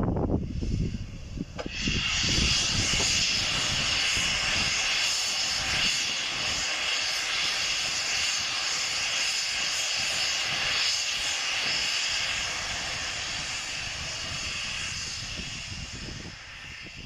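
Steam hissing from the cylinder drain cocks of LNER A3 Pacific steam locomotive Flying Scotsman. The hiss starts about a second and a half in, stays steady and fades slowly near the end.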